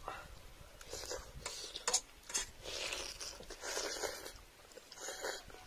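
People slurping and chewing instant noodles in broth: a run of short, wet slurps one after another, with a single sharp click about two seconds in.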